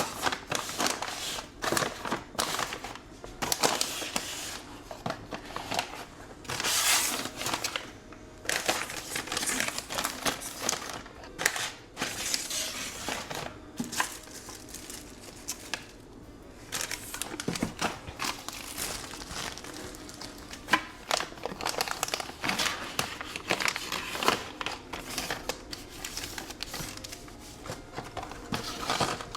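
Plastic food packaging and bags crinkling and rustling in irregular bursts as they are handled, with an occasional knock.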